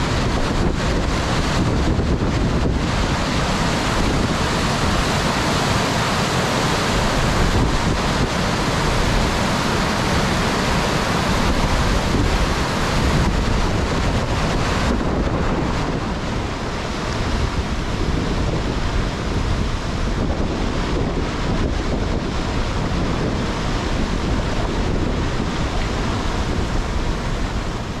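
Rushing mountain-river water, a loud steady noise, with wind buffeting the microphone. The hiss of the water eases a little about halfway through.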